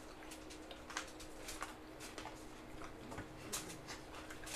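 Mukbang eating sounds: irregular wet clicks and smacks of people chewing and eating food with their hands, several a second, over a faint steady hum.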